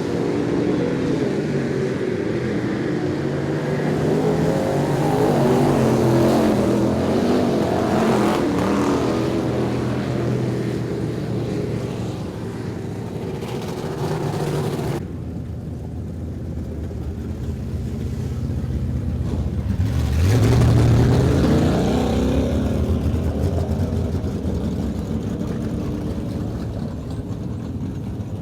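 Street stock race car V8 engines running and revving on a dirt oval, the pitch rising and falling as the cars go through the turns. The sound changes abruptly about halfway, and one engine revs up strongly a few seconds later.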